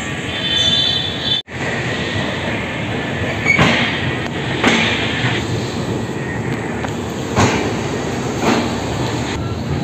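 Passenger express train pulling out, heard from an open coach doorway: a steady wheel rumble with clacks over the rail joints, a few in pairs a second apart. The sound drops out for an instant about a second and a half in.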